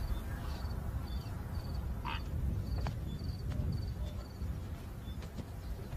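Insects chirping in short, evenly repeated trills about twice a second, over a steady low rumble. A single falling whistle sounds about two seconds in.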